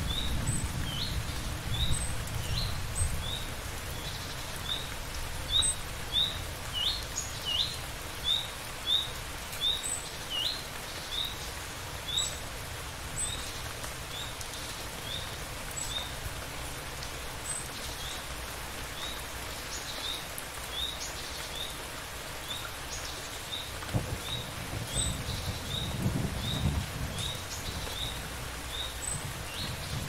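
Steady rain with a bird repeating a short, high chirp about twice a second. A low rumble of thunder fades out in the first couple of seconds, and another faint rumble comes in near the end.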